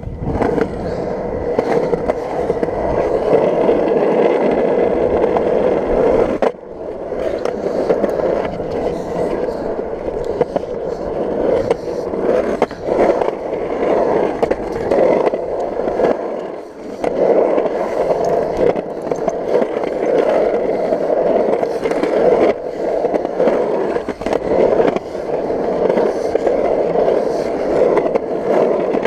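Skateboard wheels rolling over rough concrete, a steady loud grinding rumble with small clicks where the wheels cross cracks and joints. It dips away briefly twice, about six seconds in and again near seventeen seconds.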